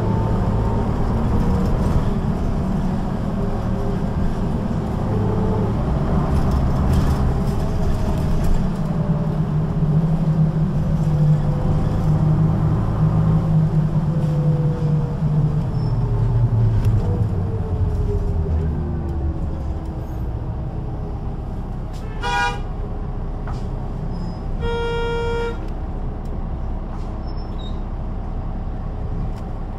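Diesel engine of a Solaris Urbino 12 III city bus with a ZF automatic gearbox, running under way with its pitch rising and falling through the gears, then dropping away about two-thirds through as the bus slows to a quieter idle. Near the end come two short electronic signals, the second a buzzing beep of under a second, about two and a half seconds after the first.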